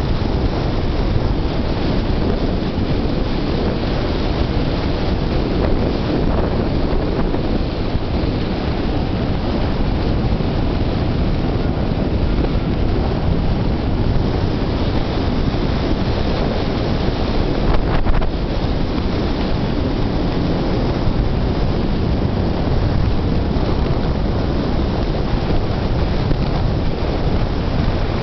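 Steady wind rushing and buffeting on a camera microphone held out the side window of a car driving at about 45 mph, with one brief click about eighteen seconds in.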